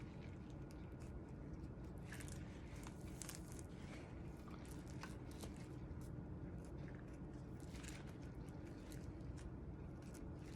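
Faint, scattered crackles and tearing of wolf hide being tugged and nicked off a toe, over a steady low background hum.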